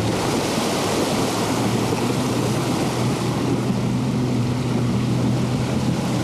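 A four-wheel drive fording a river: its engine running with a steady low hum, while river water rushes and splashes along the vehicle's body.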